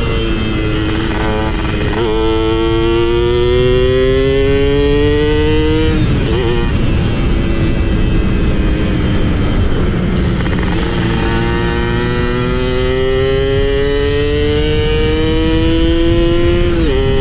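Two-stroke motorcycle engine with a carburettor 'snore' (ngorok), accelerating through the gears. Its pitch climbs steadily, drops at a gear change about six seconds in, holds for a few seconds, then climbs again and drops at another shift near the end.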